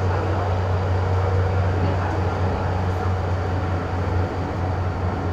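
Inside a Hong Kong MTR Island Line M-Train car running through the tunnel: a steady rumble of wheels on rail under a low hum, easing slightly about four seconds in.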